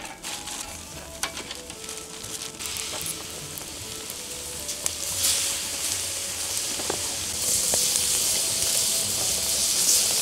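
Scallops in their shells and whole shrimp sizzling on a wire grill over glowing embers. The sizzle swells about five seconds in as soy sauce is poured into the hot scallop shells, with a few light clicks of metal tongs.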